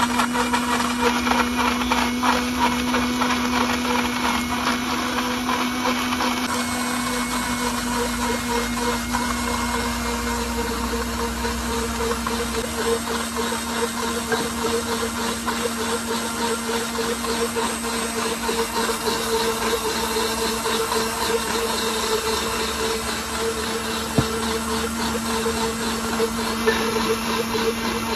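Sujata mixer grinder's motor running steadily at full speed, blending a liquid mango, coconut and dry-fruit drink in its jar, with a constant hum.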